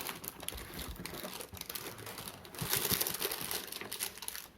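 Packaging crinkling and rustling with small clicks as the cordless phone's base unit is lifted out of its box. It grows louder for about a second past the middle.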